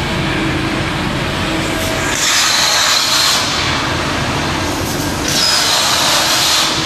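Hypertherm HPR260XD plasma torch cutting 3 mm plate in two short bursts, about two seconds in and again about five seconds in: a loud hiss with a high whine, each lasting a second or so. Between the cuts a steady low machine hum.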